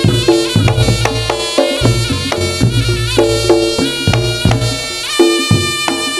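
Reog Ponorogo obyokan music: a reedy shawm-like melody, with bending notes, over a steady rhythm of drums and struck gongs.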